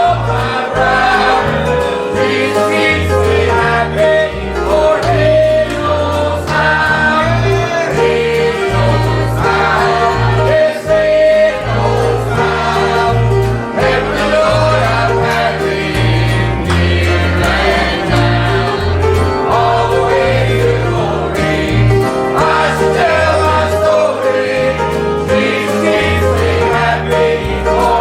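Congregational gospel singing: voices singing a hymn together over instrumental accompaniment with a steady bass line.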